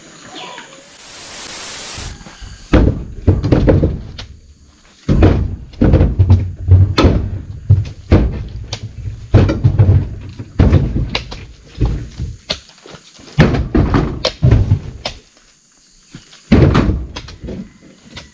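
Oil palm fresh fruit bunches being tossed one after another, each landing with a heavy thud, about one a second with a short pause near the end. A brief hiss about a second in.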